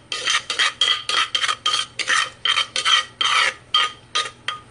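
Wooden pestle scraping curry paste out of a mortar in quick repeated strokes, about four a second.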